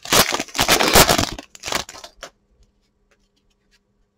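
Foil wrapper of a Topps Chrome baseball card pack crinkling and tearing as it is opened, lasting about two seconds, followed by a few faint clicks.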